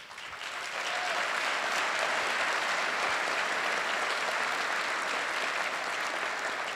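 Audience applauding, building up over the first second, holding steady, then easing slightly near the end.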